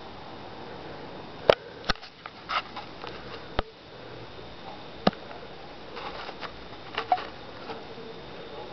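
A handful of sharp, irregular clicks and taps, about seven in all, loudest around a second and a half in and again near five seconds, with a few soft hissy noises between them.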